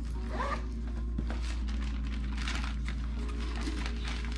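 Cosmetics packaging being handled: a run of short, rasping rustles and scrapes.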